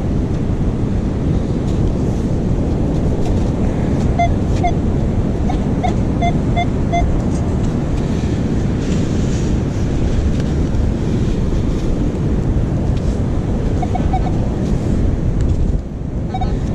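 Strong wind buffeting the microphone over beach surf, with short electronic metal-detector beeps signalling a buried target, in a run about four seconds in and again near the end.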